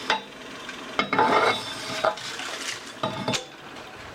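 Metal parts and tools being handled and set down on a metal surface: four sharp clinks about a second apart, with a short rattle after the second and the fourth.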